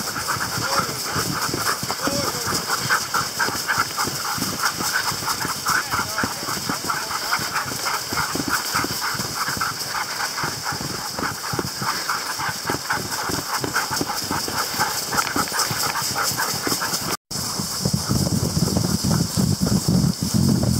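A team of Greenland sled dogs running in harness: quick, rhythmic panting and footfalls in the snow over a steady hiss of the sled moving. After a brief break near the end, a louder, lower rushing noise takes over.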